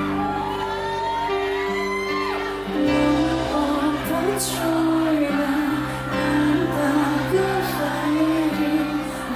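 Live band music with a woman singing, amplified in a large hall; the bass fills out and the music gets louder about three seconds in.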